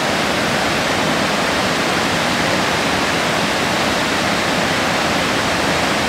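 Gullfoss waterfall, close up: a loud, steady rush of heavy water pouring into its gorge.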